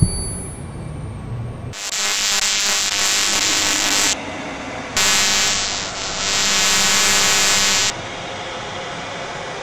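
Three bursts of loud hiss, each starting and stopping abruptly: a long one about two seconds in, a short one near the middle, and a second long one that ends a little before the end.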